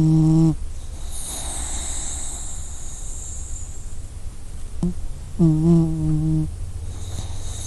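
Sleeping puppy snoring: a pitched, humming snore that ends about half a second in, a long breathy hiss of breath, then a second humming snore of about a second later on, followed by more breath.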